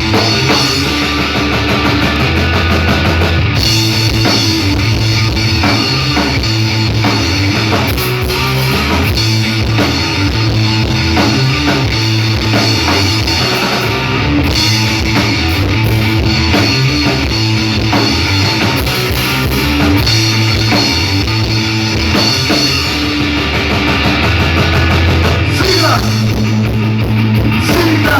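Rock band playing live: electric guitar, bass and drum kit together, loud and continuous.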